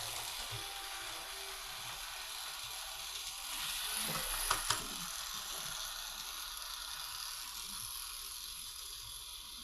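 LEGO 6399 Airport Shuttle monorail train running on its track, its battery-powered motor driving a gear along the toothed monorail rail in a steady whirring rattle. Two sharp clicks come about four and a half seconds in, and the sound grows slightly fainter near the end.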